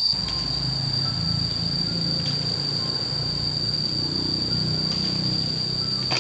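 Insects chirring in one steady high-pitched tone, over a low rumble.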